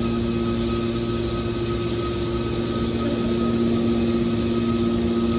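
Metal baler's hydraulic power unit running, a steady hum with a constant pitched drone and no knocks or changes.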